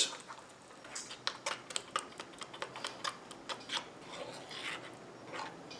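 Irregular light clicks of a utensil tapping against a ceramic bowl while dry flour mix and water are stirred into a frying batter, with a softer swish of stirring near the end.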